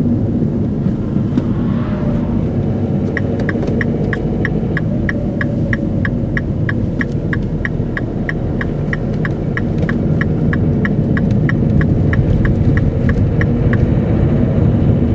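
Car's turn-signal indicator ticking evenly, about three ticks a second, starting a few seconds in and stopping near the end, over the steady rumble of the car's engine and road noise.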